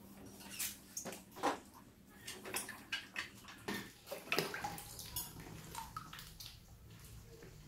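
Water splashing and sloshing in a small paddling pool as rats swim and scramble among floating plastic balls, in irregular splashes with a few louder ones.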